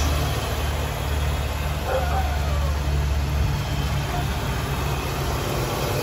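1993 Ford Thunderbird's 5.0-litre V8 idling steadily with the hood open, a fairly quiet idle. The low drone weakens a little past halfway.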